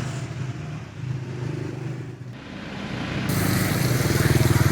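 Motorcycle engines running with a steady low note, cutting abruptly to a louder, fuller engine sound in the second half.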